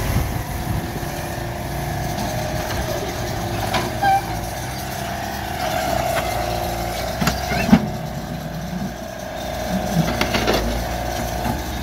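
Mini excavator's diesel engine running steadily under load while the bucket digs earth and dumps it into a dump truck, with several sharp knocks and clanks, the loudest about three-quarters of the way through.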